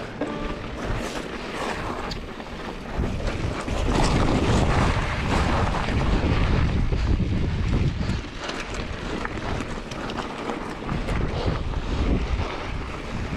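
Wind rumbling and buffeting on the microphone during a mountain bike ride, strongest from about four to eight seconds in, with scattered knocks and rattles from the bike on rough trail.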